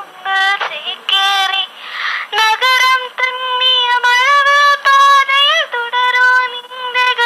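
A girl's recorded singing of a film song, played back through a Sanyo microcassette recorder's small built-in speaker. Held notes with short breaks between phrases and almost no bass. The clear playback shows the recorder is in full working condition.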